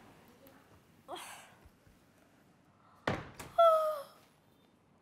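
A thump a little after three seconds, then a woman's loud, drawn-out stretching yawn, a held vocal cry that slides slightly down in pitch. A soft breathy sound comes about a second in.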